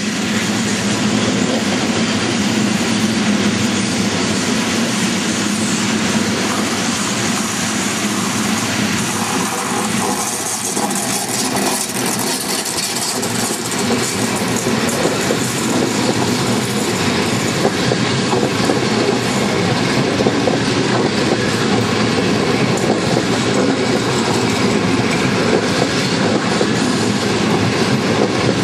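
A PKP EU06 electric locomotive hauling a passenger train arrives at the station and passes close by. The locomotive and its coaches run steadily and loudly on the track.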